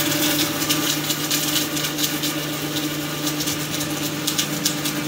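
Open-well submersible pump motor running on a bench test: a steady electric hum with irregular crackling noise over it.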